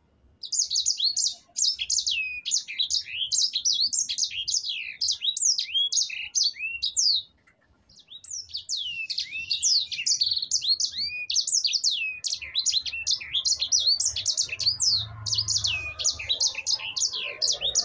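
A sanger (yellow-fronted canary) singing long rolling runs of quick, high, downward-slurred whistled notes, one run after another with a short break about seven seconds in.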